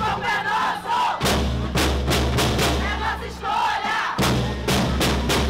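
A protest crowd of women chanting together over a drum line of marching snare drums struck in a steady beat, with a low bass sounding underneath for most of it.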